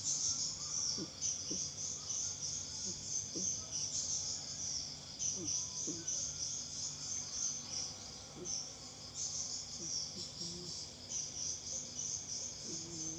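A steady, pulsing chorus of chirping insects is the loudest sound. Under it, a sleeping cat snores softly in short low snores every second or two.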